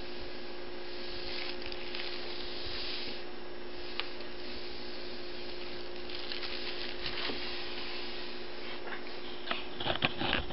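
Soft rustling and scratching of paper as a kitten rolls on it and is petted, with a cluster of sharper crinkles near the end, over a steady low hum.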